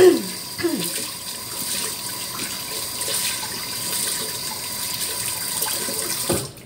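Water running steadily from a tap into a basin, ending with a knock and a sudden stop near the end.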